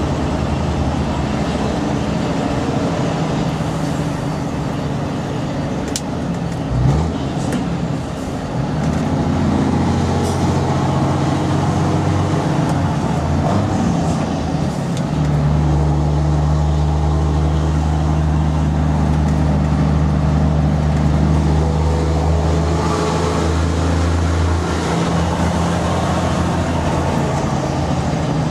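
Volvo FH12 truck's six-cylinder diesel engine running through a loud, open high-pipe exhaust. The engine note is steady, then from about halfway through it becomes deeper and louder, as if pulling under load, and eases off near the end.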